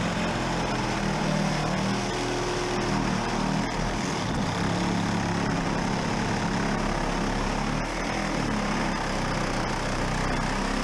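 A motor running steadily without letting up, with a low hum under a spread of noise.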